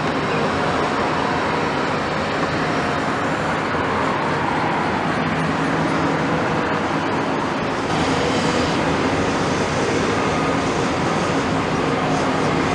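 Diesel crawler excavators at work, a Caterpillar nearest: steady engine running under load with hydraulic noise as the boom and bucket swing, a little louder from about eight seconds in.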